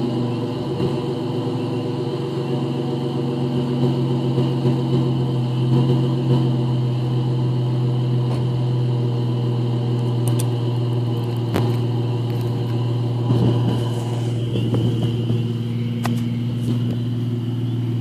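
2012 Dodge Charger's 3.6-litre V6 running steadily at idle through a Flowmaster 40 series exhaust, a deep even drone from the tailpipes.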